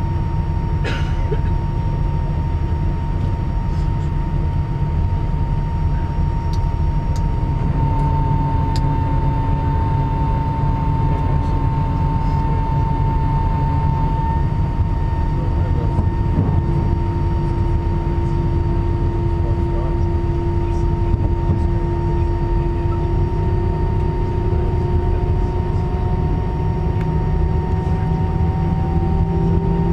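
Steady drone and hum inside an Airbus A320-200 cabin on the ground, with several high, steady whines over it; one whine slowly rises in pitch through the last third.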